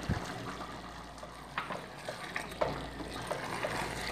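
Wooden spoon stirring thick, simmering dal in a stainless steel pot, knocking and scraping against the pot about once a second over the steady hiss of the cooking pot. A dull thump comes at the very start.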